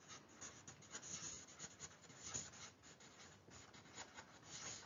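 Whiteboard marker scratching across a whiteboard in short, irregular strokes as a word is handwritten; faint.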